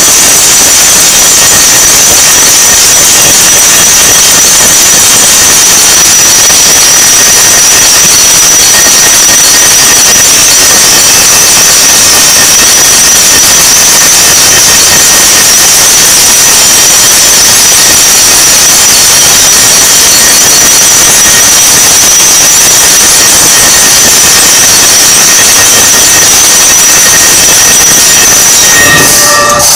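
Temple aarti din: a continuous clangour of many ringing bells and percussion, so loud that the recording is overloaded into an unbroken steady roar. It drops off near the end.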